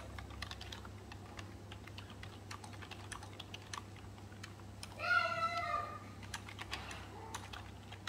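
Rapid, irregular small clicks and taps, like keys being pressed, several a second. A short high-pitched voiced sound rises and falls about five seconds in.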